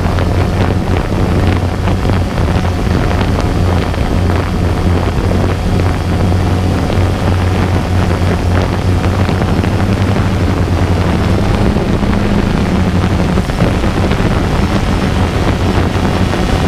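DJI Phantom 2 quadcopter's motors and propellers humming steadily, picked up by the camera mounted on it, with wind buffeting the microphone.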